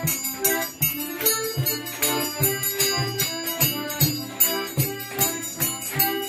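Lively music with a steady beat of about three strokes a second under held melody notes.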